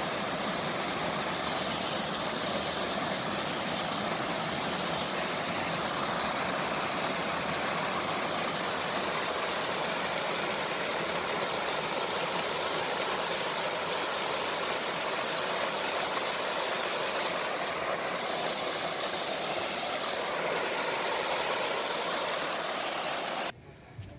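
Spring water pouring from an irrigation pipe and cascading down a small rocky waterfall into a channel: a steady, loud rush close to the microphone, cutting off just before the end.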